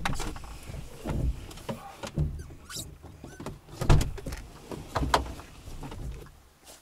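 A Lada Niva's engine is switched off right at the start. After it come scattered knocks and thumps, with a few short squeaks, from handling and moving about in the car.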